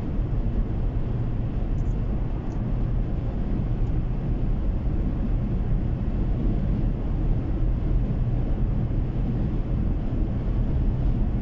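Steady low rumble of tyre and engine noise inside a car cruising at highway speed.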